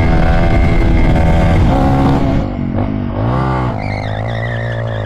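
Supermoto motorcycle engine held at high, steady revs through a wheelie. About two and a half seconds in the sound changes abruptly, and a motorcycle engine revs up and back down once, then runs steadily and a little quieter.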